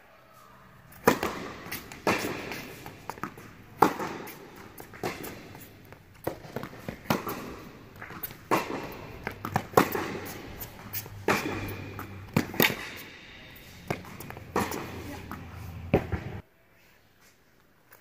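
Tennis balls struck by rackets and bouncing on an indoor hard court during a serve and rally: sharp pops about once a second, each echoing in the hall. The sound cuts out suddenly near the end.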